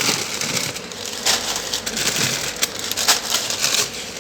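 Plastic food packets crinkling and rustling as they are handled and shifted about, with a few sharper crackles.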